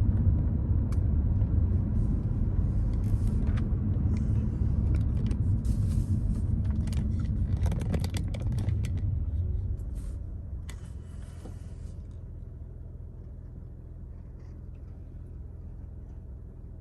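Car road noise and engine rumble heard from inside the cabin while driving, with a few clicks and rustles. About ten seconds in, the rumble drops to a quieter steady low hum.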